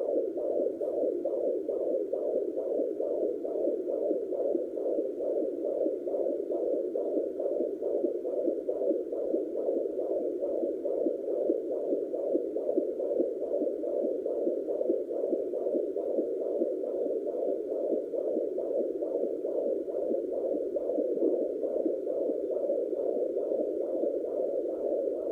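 Fetal heartbeat at 29 weeks of pregnancy picked up by a pocket fetal Doppler and played through its speaker: a fast, even pulse that keeps going steadily.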